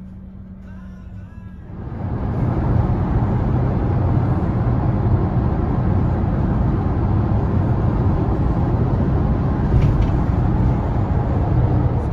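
Motor vehicle noise: a quieter steady low hum, then about two seconds in a much louder, rough, steady rumble of road noise.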